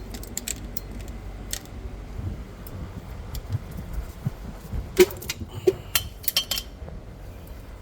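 Irregular metal clicks and clinks of a hand ratchet and socket extension working loose a 13 mm hub assembly bolt, with dull knocks. The sharpest clinks come in a cluster about five to six and a half seconds in.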